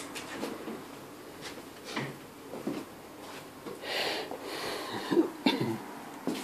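A person coughing a few seconds in, with a couple of sharp clicks shortly after it, in a quiet room.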